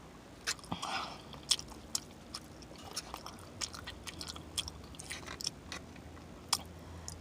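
A person chewing and smacking her lips close to the microphone while eating jerk chicken off the bone: faint, irregular mouth clicks and smacks, with a short sucking sound about a second in.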